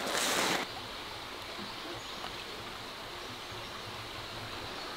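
Creek water running steadily, after a brief louder rush of noise in the first half-second.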